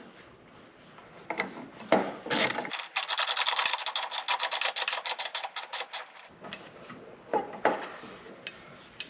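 Small electric band file (narrow-belt sander) grinding metal on the door hinge for about three and a half seconds, with a fast, regular rasping beat, between clinks of metal tools and parts.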